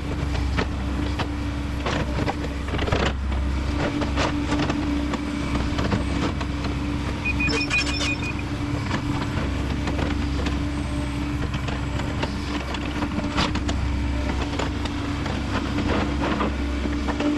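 Kobelco SK210 excavator's diesel engine running steadily under load, with scattered knocks and clunks from the machine at work. A short beeping tone sounds about halfway through.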